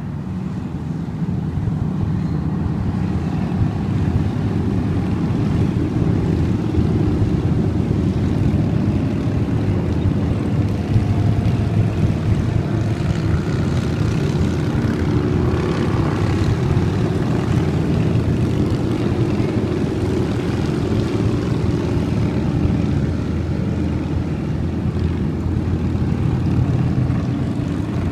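A steady stream of motorcycles passing on a road, their engines blending into one continuous low drone that swells a little about halfway through.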